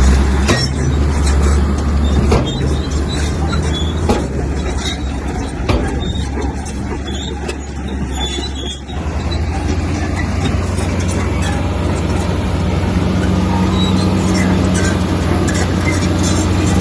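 Komatsu bulldozer's diesel engine running steadily, with a few sharp metallic clanks in the first half. About nine seconds in the engine note changes abruptly to a different steady drone.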